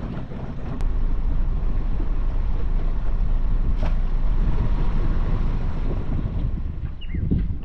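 Wind buffeting the microphone over the steady running of a small aluminium boat's outboard motor as the boat moves along.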